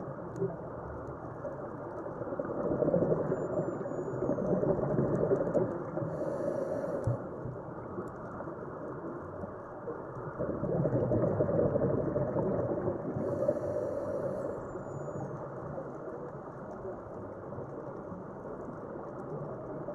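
Muffled underwater noise through a camera housing, with a scuba diver's breathing: twice, a few seconds of exhaled bubbles rumbling, each ending in a short hiss from the regulator as the diver breathes in.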